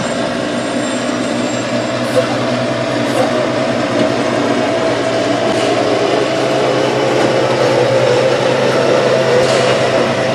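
Automated side-loader garbage truck's diesel engine running with a steady hum and a higher whine while its hydraulic arm grabs, lifts and tips a wheeled trash cart into the hopper. A few knocks from the cart and arm come through, around two and three seconds in and again near the end.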